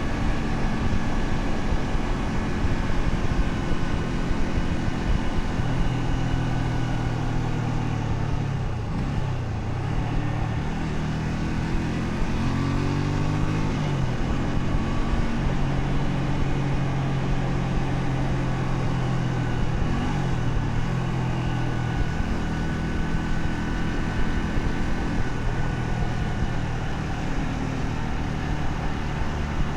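Honda Shadow 125's 125 cc V-twin engine running under way, its pitch dipping and climbing again a few times as the revs change.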